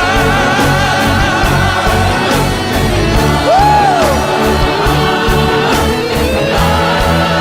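Gospel song: sung vocals over a band with a steady drum beat, with one pitch glide up and back down about halfway through.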